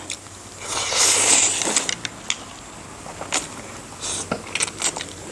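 Noisy eating: a loud slurp lasting about a second, then scattered soft clicks of chewing and utensils.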